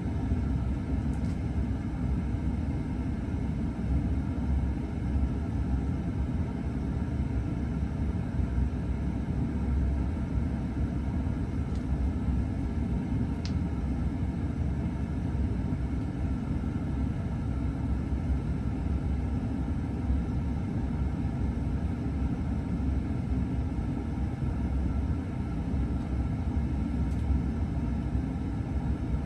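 A 42-inch Encon Traditional ceiling fan coasting down after being switched off, giving a steady low rumble of moving air.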